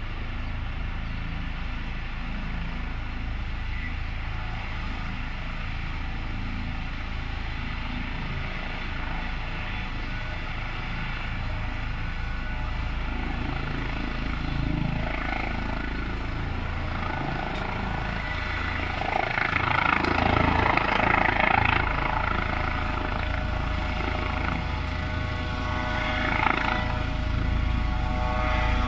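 Polish air ambulance helicopter (Airbus EC135) taking off: a steady turbine whine over the rotor noise, getting louder as it lifts off. It is loudest around twenty seconds in, with another swell shortly before it climbs clear of the rooftops.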